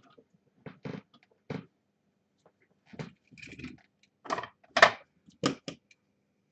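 Handling noises on a workbench: a string of short, irregular knocks and clicks as tools and parts are picked up and set down, loudest about five seconds in.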